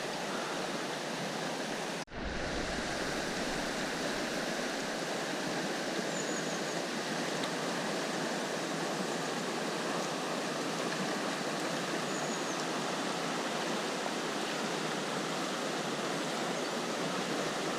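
River water rushing steadily, an even hiss of flowing current, with a brief dropout about two seconds in.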